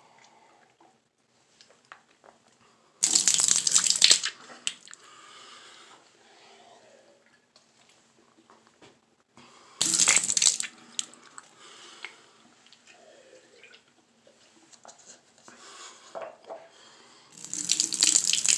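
Mouth rinse after tooth brushing: rinse water swished in the mouth, then spat into the sink three times in loud, wet bursts, about three seconds in, about ten seconds in, and near the end.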